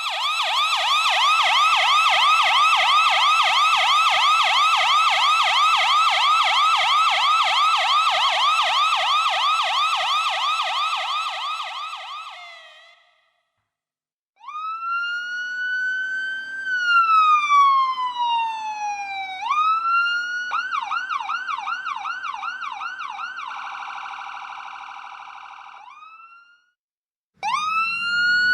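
Electronic ambulance siren. A fast warbling yelp fades out about twelve seconds in. After a short silence comes a wail that rises and then slowly falls, then switches to a fast yelp that fades away. Near the end a new wail rises.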